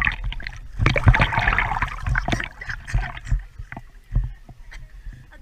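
Water splashing, with many short knocks and bumps, densest in the first half and thinning out after.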